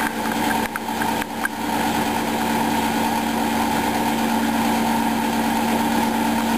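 Polar Westa-85 front-loading washing machine running a wash, its drum motor giving a steady hum, with a few light clicks in the first second and a half.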